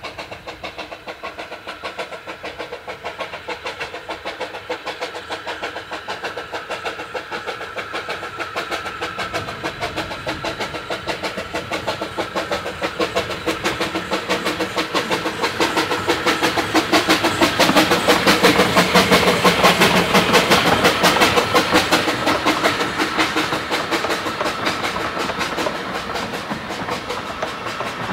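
Replica Baldwin 2-6-2T narrow-gauge steam tank locomotive No. 762 'Lyn' working a train past, with a rapid, steady beat from its exhaust. The beat grows louder as it approaches, is loudest a little over halfway through, then eases as the coaches roll by.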